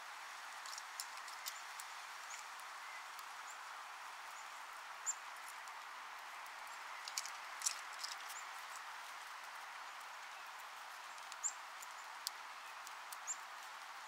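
Small wild songbirds giving short, high call notes every few seconds, several in quick succession about seven to eight seconds in, over a steady background hiss.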